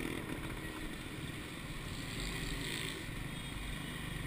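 Steady road traffic: motorcycles, auto-rickshaws and trucks passing on a busy street, a continuous hum of engines and tyres with a low rumble.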